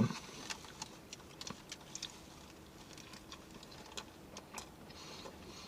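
Faint, irregular wet clicks of someone chewing a mouthful of chicken sandwich close to the microphone.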